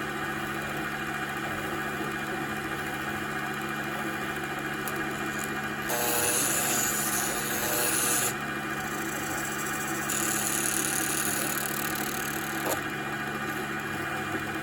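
Emco Unimat PC benchtop CNC lathe running with a steady machine hum, its cutting tool turning a pencil's wood. The cutting is heard twice as a high, hissing scrape lasting two to three seconds each, the first starting about six seconds in.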